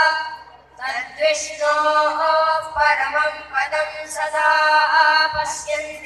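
A group of schoolboys singing a prayer together in unison through microphones, in sung phrases separated by short pauses for breath.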